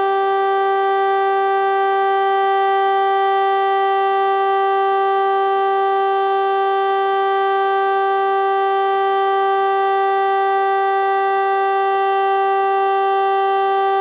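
DS 977 motor siren sounding one long, unwavering tone at constant pitch: the continuous test signal of a Czech siren test.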